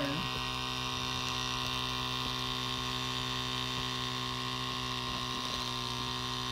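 KaCio Mini 0.5 cc two-cylinder miniature steam engine running fast and steadily under steam, an even hum that holds the same speed throughout.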